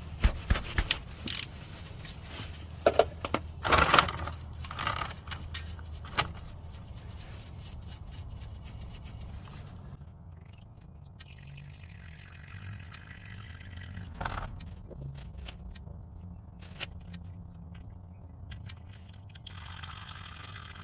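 Sharp metal clicks and knocks of a 15 mm wrench loosening an oil drain plug during the first few seconds, then a steady low rush, typical of engine oil draining into a pan.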